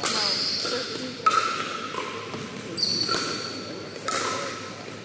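Pickleball rally: paddles striking the hard plastic ball, about four sharp, ringing pocks a second or so apart, echoing in a gym hall.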